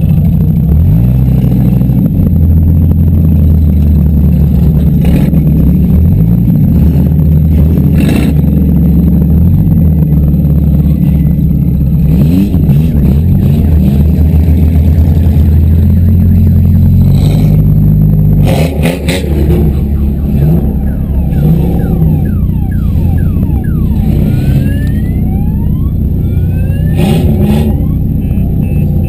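Demolition derby cars' engines running loud and revving, with several sharp bangs of cars colliding spread through the stretch.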